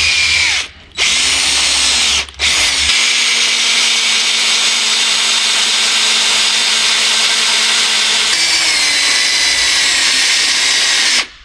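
Electric drill boring out a broken steel muffler bolt in a Honda 125M three-wheeler's cylinder head, the bit running at high speed. It stops briefly twice in the first couple of seconds, then runs steadily for about nine seconds before stopping near the end.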